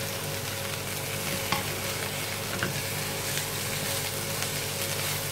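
Raw beef mince and softened onion sizzling steadily in a hot frying pan as the mince is dropped in and broken up by hand and spatula, with a few faint taps.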